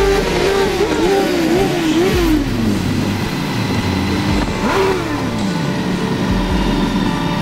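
Motorcycle engines revving up and down in quick throttle blips, the note falling away after about two seconds; a second sharp rise and long falling note comes about five seconds in, over a steady rush of road and wind noise.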